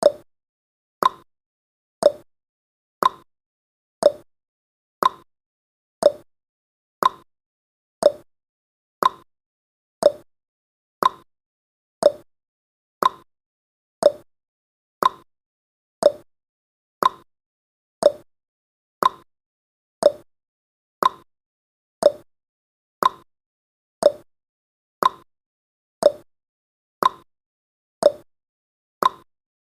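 Clock ticking sound effect of a countdown timer: one short tick every second, evenly paced, alternating between a slightly higher and a slightly lower tick like a tick-tock.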